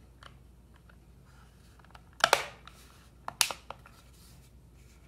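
Plastic clicks as the Garmin GPS's front bezel is pressed and snapped back onto its rear case: one sharp click about two seconds in, then a few lighter clicks a second later.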